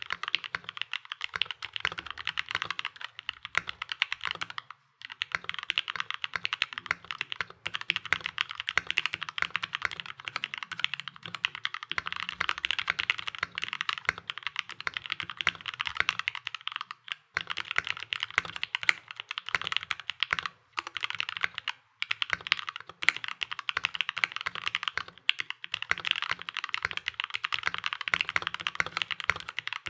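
Typing test on a custom 65% mechanical keyboard with an acrylic case and acrylic plate, fitted with lubed Gateron Yellow KS-3 linear switches and Durock V2 stabilizers: a steady run of fast keystroke clacks with a low thock under them, pausing briefly a few times.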